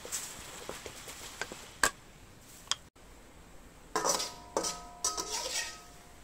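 A spatula scraping and tapping against a stainless steel wok: small clicks while stirring. From about four seconds in come three louder scrapes, each leaving the wok ringing briefly as food is scooped out of it.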